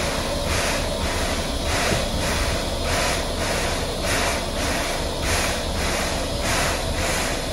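Steam locomotive working steadily, its exhaust chuffing in an even rhythm of about two beats a second over a low rumble.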